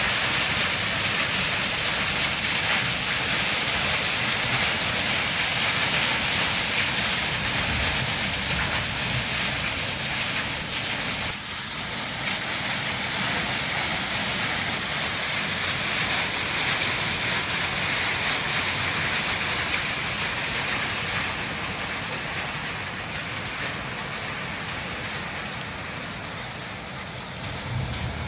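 Heavy rain falling steadily: an even, continuous hiss of rain on surfaces, easing slightly near the end.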